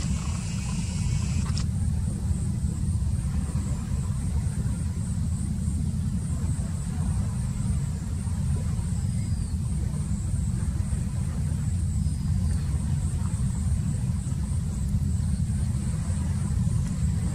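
A boat's engine running with a steady low rumble.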